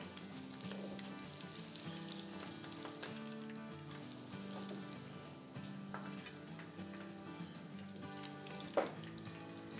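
Spice-coated salmon pieces sizzling in shallow oil in a frying pan, a steady crackle, with soft background music. A single sharp knock near the end, as tongs lift a piece from the pan.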